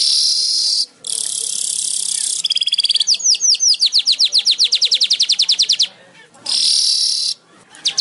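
Weaver bird (Ploceus) song: harsh hissing buzzes alternating with fast runs of sharp sweeping chirps, about eight a second, the pattern repeating several times.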